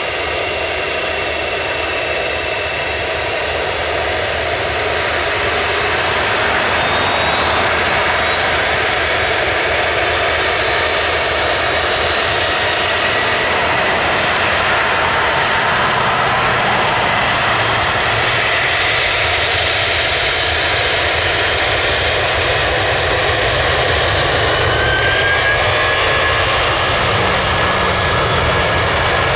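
An Airbus A320-200's two IAE V2500 turbofan engines running with a steady jet whine and rumble as the airliner taxis, growing louder over the first few seconds. Near the end, whine tones rise as the engines spool up for takeoff.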